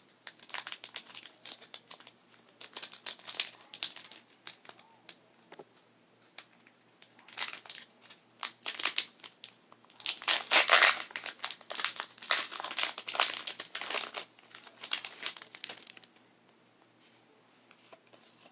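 Foil wrapper of a Pokémon card booster pack crinkling in irregular bursts as it is handled and torn open, loudest about halfway through and stopping a couple of seconds before the end.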